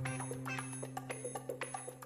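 Background music laid over the video: an instrumental track with a steady percussive beat over a held bass note.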